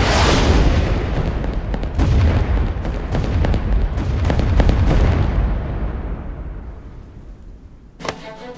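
A plane's engine roar, a loud, rough rumble that fades steadily away over the last few seconds as the aircraft passes. Music starts suddenly near the end.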